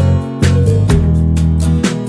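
Background music led by guitar, with a steady beat of strummed or plucked chords about twice a second.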